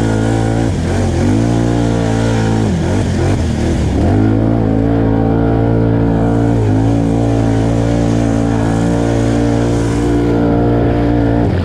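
Can-Am Outlander 850 XMR ATV's V-twin engine running hard at fairly steady revs. The revs dip and pick back up about a second in, again around three to four seconds in, and once more near seven seconds.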